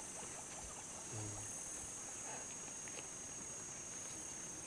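Steady, high-pitched chorus of insects in dry bush, with a brief low hum about a second in.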